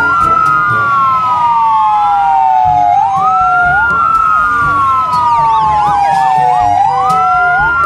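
Toy fire truck's electronic siren wailing: two tones together sweep quickly up, then slide slowly down. The sweep repeats about every four seconds.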